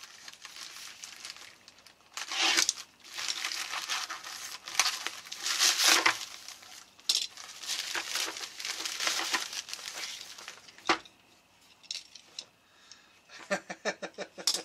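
Plastic poly mailer crinkling and rustling loudly as it is torn open and a box is pulled out of it. A single knock follows, then a quick run of small clicks near the end.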